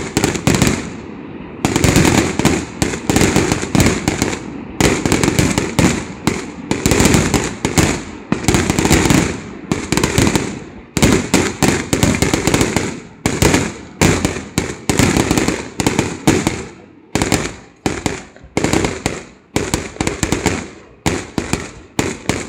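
Aerial fireworks display: shells bursting one on another with crackling, nearly continuous for the first half, then a string of separate bangs about one or two a second.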